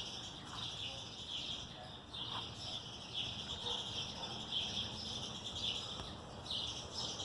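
Outdoor ambience: a faint, continuous high-pitched chirping chorus that swells and fades about once a second.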